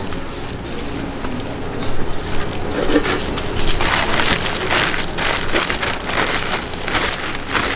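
Clear plastic bag crinkling and crackling as sticky hotteok dough is scooped and worked inside it, with soft squelches of the dough. The crackling grows denser and louder about halfway through.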